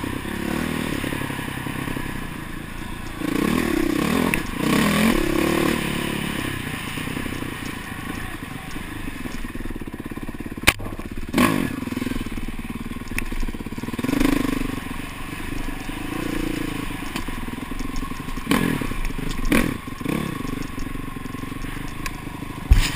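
Dirt bike engine revving up and easing off with the throttle, rising and falling several times, with a few sharp knocks and clatter from the bike over the trail.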